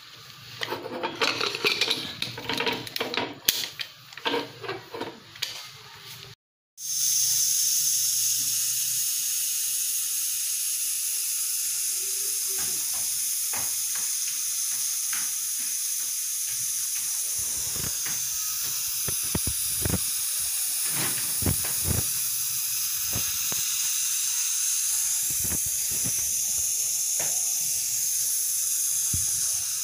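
Metal clattering of pot and lid handling for the first few seconds. From about seven seconds in, an aluminium pressure cooker on a gas burner hisses loudly and steadily as steam escapes under its vent weight while it builds pressure.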